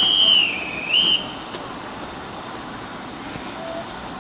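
A whistle sounds once, just over a second long: a single high tone whose pitch dips and rises back. It is followed by steady platform background noise.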